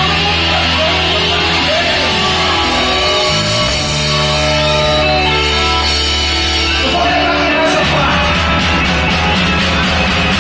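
A rock band playing live with distorted guitars, bass and drums, with a sung vocal line; the drumming grows busier near the end.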